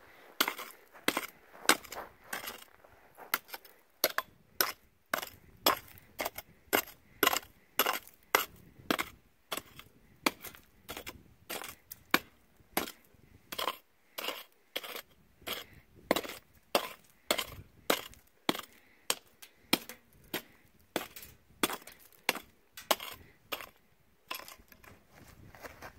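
Rock hammer striking and breaking up bedrock: a long run of sharp blows, roughly two a second, with a few short pauses.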